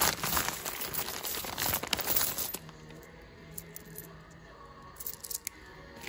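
A clear plastic bag crinkling loudly as it is handled and opened, for about two and a half seconds, then a few light clicks as the small black plastic body clips are tipped into a hand.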